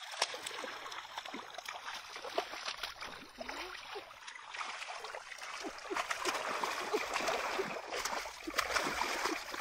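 Hands sloshing and groping through a shallow muddy stream, with many small splashes of water; busier and louder in the second half.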